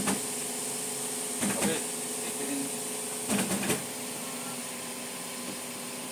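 Toyota sedan's engine idling steadily, with three short bursts of noise about a second and a half apart, at the start, around a second and a half in, and around three and a half seconds in.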